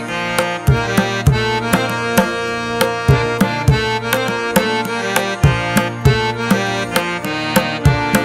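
Instrumental background music: a steady hand-drum rhythm, some low strokes bending in pitch, over held melody notes.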